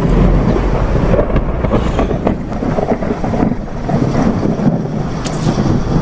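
Thunder sound effect: a continuous low rumble with a few sharp crackles scattered through it.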